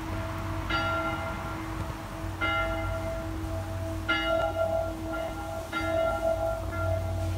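Church bells ringing, a new strike about every second and a half to two seconds, each one ringing on under the next.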